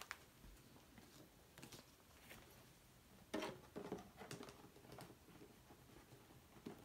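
Faint clicks and light knocks of a multi-disc Blu-ray case being handled, the loudest cluster about three and a half seconds in.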